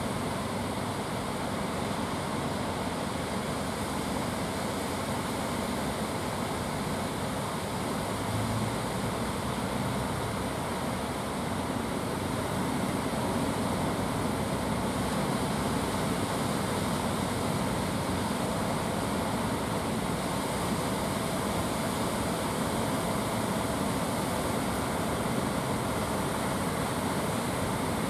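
Surf breaking, with the steady drone of outrigger fishing boats' engines running under power through the waves.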